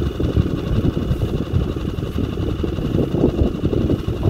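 Boat's outboard motor running steadily, a continuous rough low rumble.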